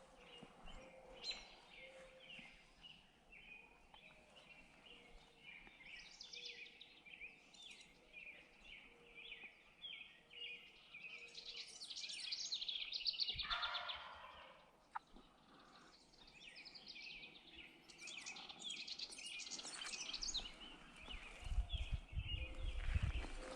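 Small songbirds chirping and singing, a steady stream of short repeated notes, growing denser twice in the middle and later. A low rumble comes in near the end.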